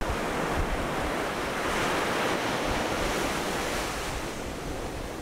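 Ocean waves washing onto the shore: a steady rush of surf that swells about two seconds in and eases off toward the end.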